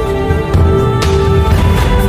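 Background music: sustained held notes over a heavy low beat, with cymbal-like strokes about every half second.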